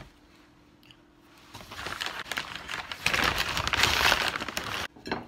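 A bag crinkling and rustling as it is handled and lifted, starting about a second and a half in, growing louder, then stopping abruptly just before the end.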